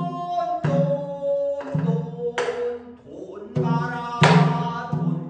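A man singing pansori in long, held notes, punctuated by several sharp strokes on a buk barrel drum.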